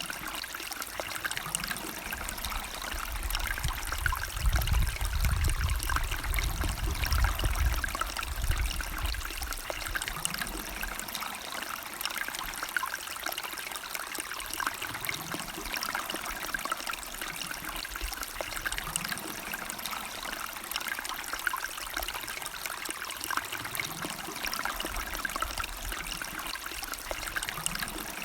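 A stream or small river running, a steady rush and trickle of water. A low rumble swells under it for several seconds in the first third.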